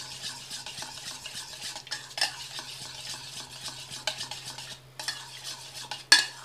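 Metal spoon stirring and scraping beaten yogurt in a stainless steel bowl, with a few sharper clinks of the spoon against the bowl's side, the loudest near the end.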